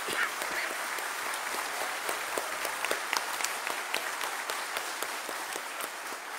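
Crowd applauding: many hands clapping together.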